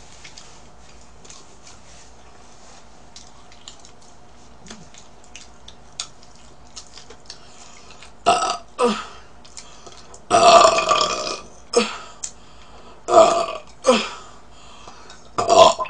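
A woman burping loudly about seven times, the longest burp close to a second long. Before the burps there are only a few small clicks.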